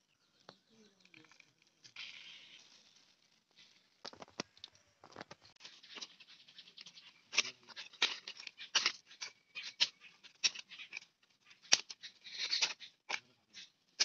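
Leaves rustling and crackling as hands handle a leafy mango cutting over a banana-leaf mat, with many short, sharp clicks and two brief bursts of rustle about two seconds in and near the end.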